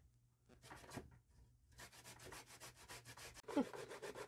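Vegetables rubbed quickly back and forth over the metal blades of a handheld plastic grater into a plastic bowl, a steady run of rasping strokes that starts after a short pause. Near the end there is a brief louder sound that falls in pitch, and then a carrot is being grated.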